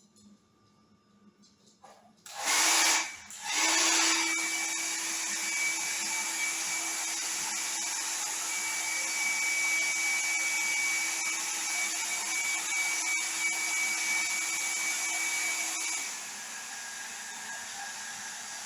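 Hair dryer switched on about two seconds in, cut off for a moment and switched back on, then running steadily with a blowing hiss and a steady whine. About 16 s in it drops to a quieter, lower-pitched setting and keeps running.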